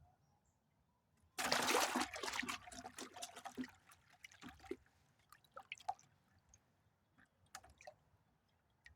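A sudden splash of water, about a second and a half in, trailing off into scattered drips and trickles for several seconds.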